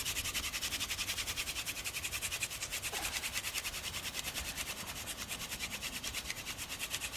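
Wooden hand drill spindle spun back and forth between the palms on a fireboard, making a fast, even rasping rhythm of friction strokes as it works the wood toward smoke and an ember.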